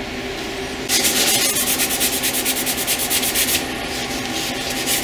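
Rapid back-and-forth strokes rubbing across the deck surface of a cast-iron LS V8 engine block to clear the last gasket residue, several strokes a second. The strokes start about a second in and stop after about three and a half seconds.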